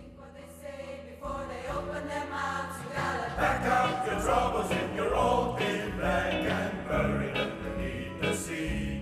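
Pop choir singing with a live band of bass guitar, electric guitar and drums as a song starts, growing louder over the first few seconds and then keeping a steady beat.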